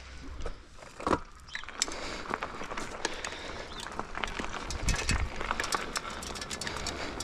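Bicycle being ridden over a rough surface: steady tyre and road noise that builds after the first second or so, full of small clicks and rattles, with a single thump about a second in and a low rumble of wind on the microphone.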